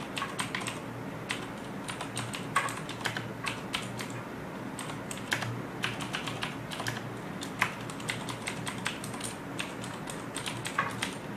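Typing on a Razer BlackWidow Tournament Edition mechanical keyboard with Cherry MX Blue switches: irregular clicky keystrokes, several a second.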